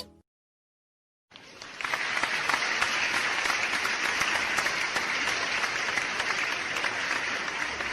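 Crowd applause that starts about a second in, swells quickly and then holds steady.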